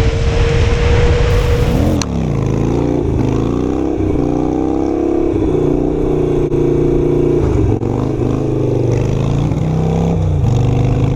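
Wind rush and a steady engine note from a ridden motorcycle, then a cut to a Harley-Davidson Sportster 883's air-cooled V-twin running under way, its pitch rising and falling with the throttle.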